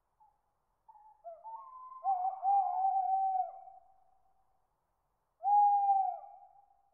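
Owl hooting: a few short hoots run into a long held hoot, then after a pause a second long hoot that drops in pitch at its end.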